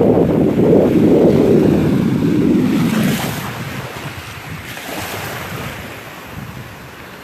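Wind buffeting the microphone with a loud low rumble for about the first three seconds, then easing off. Under it, Gulf surf washes ashore, with small waves breaking about three and five seconds in.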